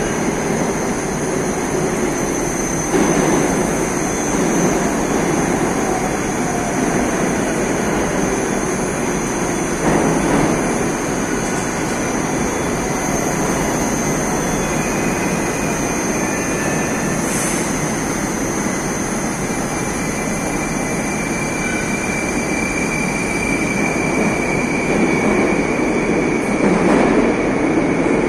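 Moscow metro train pulling out of the platform, its cars running past close by with a steady rumble of wheels on rail. A thin high whine comes in about halfway through.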